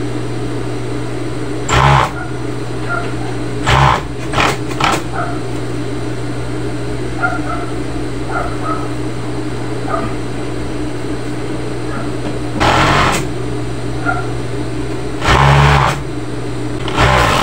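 Industrial sewing machine with its motor humming steadily, broken by about six short bursts of stitching as the pedal is pressed and released.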